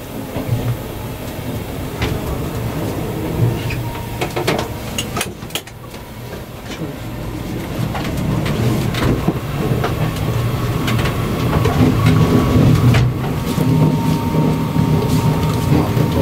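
Running noise heard inside a locomotive-hauled train coach at the door: a low rumble of wheels on rail that grows louder from about six seconds in as the train gathers speed, with scattered sharp clicks and rattles.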